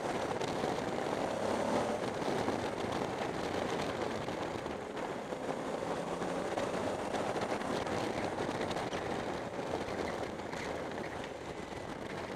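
Kawasaki KLV1000 V-twin motorcycle riding at a steady speed, its engine running under a steady rush of wind and road noise.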